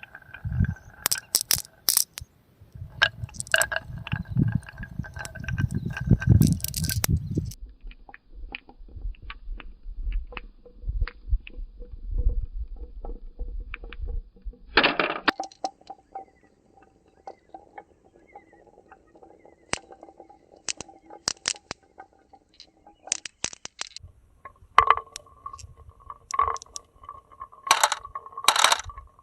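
Marbles rolling and clattering down a HABA wooden marble run, with a steady rolling hum along the tracks, many small clicks and knocks, and louder clacks as they drop and strike the pieces.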